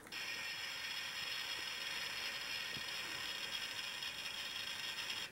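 Electronic drill sound effect played through the small speaker of a Supersize Thunderbird 3 toy, set off by turning the toy upside down: a steady mechanical whirring that starts suddenly and cuts off after about five seconds.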